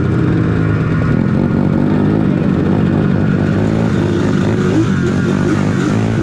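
Quad bike (ATV) engine running at riding speed, heard from the rider's seat, its pitch wavering slightly with the throttle.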